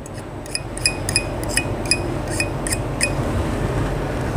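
A run of about eight light metallic clinks, roughly three a second, each with a short bright ring, stopping about three seconds in, over a steady low background rumble.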